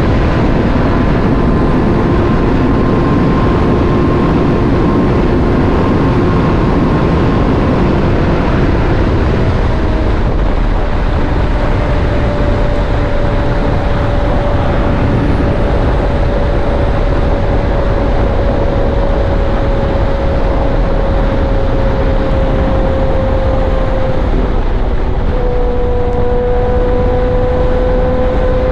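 Motorcycle cruising at steady speed: loud, continuous rushing wind and road noise over a steady engine tone, which drops a step about three-quarters of the way through and then climbs again.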